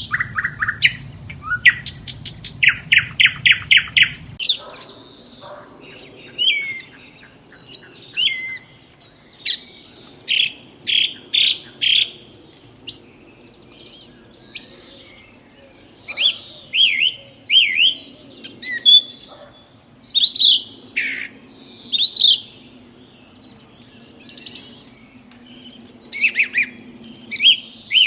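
Birds chirping and calling: short chirps and quick runs of repeated whistled notes. About four seconds in, a low background rumble cuts off.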